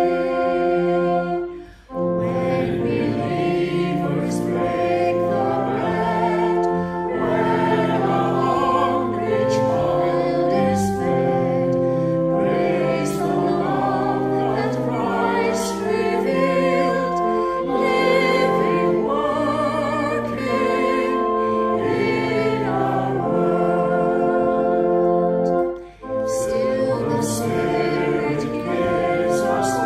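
A church congregation singing a hymn with accompaniment, in steady held notes that move line by line, with short breaks between lines about two seconds in and again near the end.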